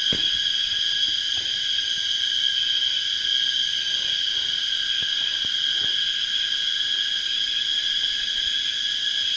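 Loud, unbroken high-pitched insect drone, a steady buzzing whine that sounds like an engine.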